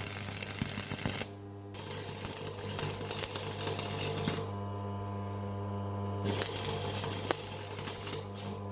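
Stick welder crackling over the steady hum of its transformer as the cut-and-shortened throttle linkage is welded up. The arc breaks off about a second in and again for a couple of seconds midway, the hum carrying on, then strikes up again.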